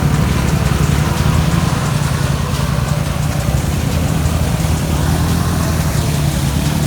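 Honda Foreman 500 ATV's single-cylinder engine running steadily with a low, even rumble.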